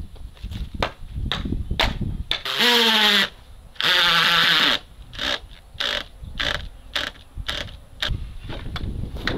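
Cordless drill driving screws into wooden fence poles in two bursts of about a second each, the motor's pitch rising as it spins up under load. Sharp knocks and taps come before and after the bursts.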